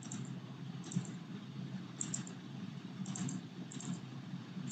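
Soft, irregular clicks from computer operation, about six spread unevenly, over a low steady hum.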